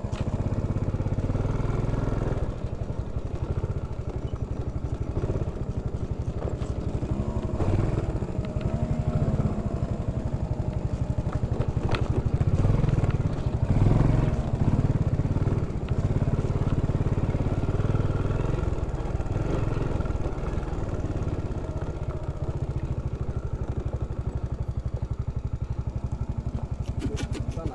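Small step-through scooter's engine running steadily at low speed on a rough dirt track, with a couple of brief rattles and knocks around the middle.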